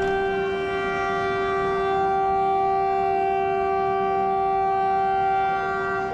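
Vande Bharat Express train horn sounding one long, steady blast, several notes held together as a chord, which stops near the end. It is the warning signal given as the train prepares to depart.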